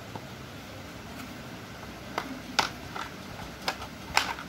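About five light clicks and taps between two and four seconds in as thin raw potato slices are stacked and pressed into line on a cutting board, over a steady low room hum.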